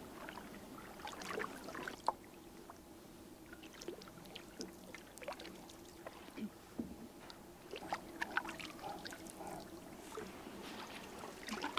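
Canoe paddling on calm water: quiet, scattered small splashes and drips from the wooden paddle strokes.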